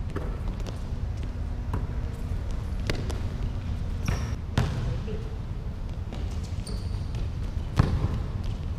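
A basketball bouncing and thudding on a hardwood gym floor during play, at irregular moments, the loudest thuds about halfway through and near the end. Brief high sneaker squeaks and a steady low rumble of the hall are heard underneath.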